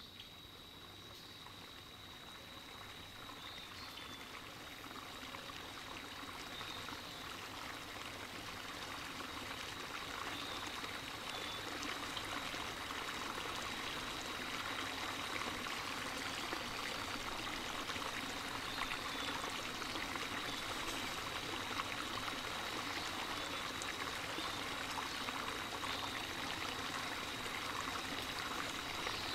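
Running water, a steady splashing trickle, fading up over the first ten seconds or so and then holding steady, with a faint steady high-pitched whine underneath.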